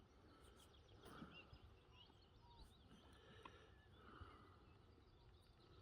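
Near silence, with faint, scattered bird chirps and short calls in the background.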